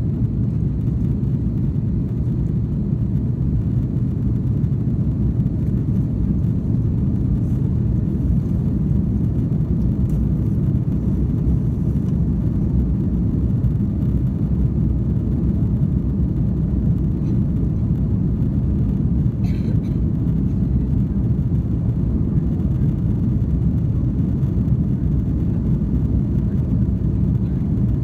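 Airbus A330-300 in flight, heard from inside the passenger cabin: a steady, even low rumble of engines and airflow.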